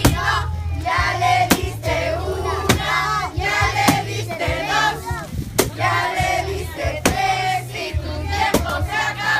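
A group singing over music with a steady bass line, with sharp knocks about every second or so.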